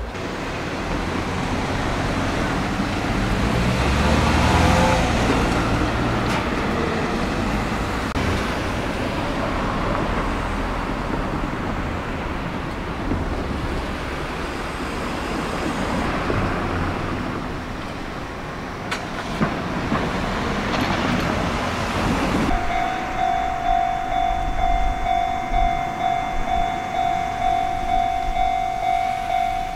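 Rumbling vehicle noise swells to a peak a few seconds in and eases off. Then, about 22 seconds in, a Japanese railway level-crossing warning bell starts ringing: an electronic ding repeating at a steady rhythm, the signal that a train is approaching.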